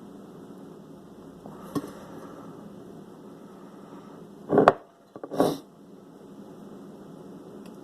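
Hands working with the glue and plastic sheet: a faint click a couple of seconds in, then two short handling noises about a second apart, the first louder, over a steady low hum.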